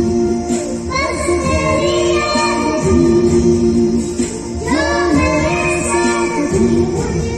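A young girl singing into a microphone over instrumental backing music, amplified through PA loudspeakers. The sung phrases break briefly about four and a half seconds in.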